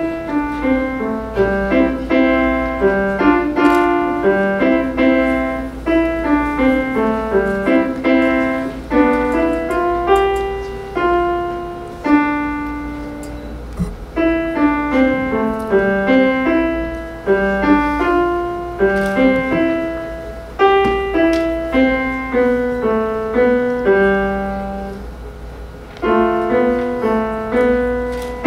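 Grand piano played solo: a simple student piece played in short phrases, with brief pauses between phrases about halfway through and again near the end.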